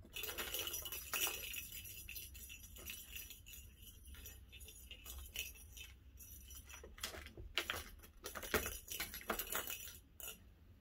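Plastic balls rolling and clattering around the tracks of a tiered cat track toy as a kitten bats at them, with a run of rolling rattle near the start, then irregular sharp clicks and clinks.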